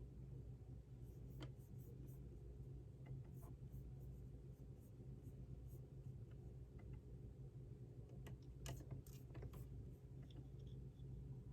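Faint pen writing on paper: irregular light scratches and small taps, over a low steady hum.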